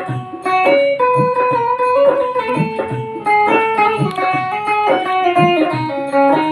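Indian banjo (bulbul tarang) playing a melody: plucked metal strings ringing as the keys are pressed to change the notes, over a regular low beat.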